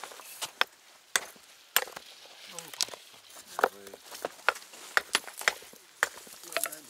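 Small hand hammer striking rock: about ten sharp knocks, irregularly spaced, hammer on stone.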